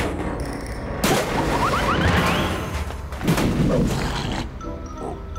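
Cartoon slapstick sound effects of a metal trash can being knocked over: a sudden crash about a second in, a noisy tumble with quick rising squeaks, and a second bang a little after three seconds. Light music takes over near the end.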